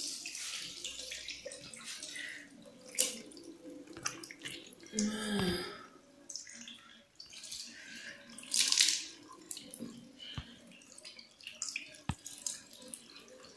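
Water splashing and dripping in irregular bursts as a face is rinsed by hand with lukewarm water, washing off a tomato face mask. The biggest splashes come about three seconds and about nine seconds in.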